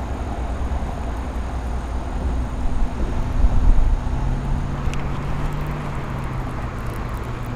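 Wind buffeting the microphone, a steady low rumble, with a faint steady hum coming in about four seconds in.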